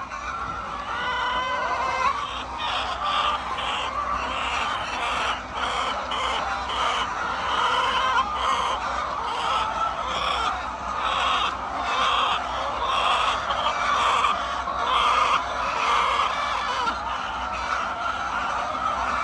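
A flock of chickens clucking and calling over one another: a dense, continuous chatter of many short, overlapping calls.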